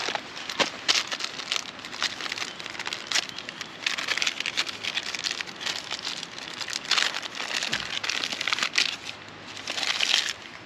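Small wood fire crackling in a Bushbox twig stove, with irregular pops and snaps and a louder stretch of crackling near the end.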